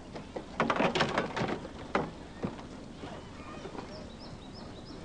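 Cardboard box dropped into a plastic wheelie bin: a clatter of knocks and rattles for about a second and a half, then one more knock. Birds chirp faintly after it.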